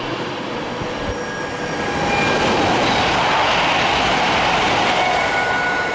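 A Virgin Class 390 Pendolino passing through the station at speed: a steady rush of wheel and air noise that swells about two seconds in.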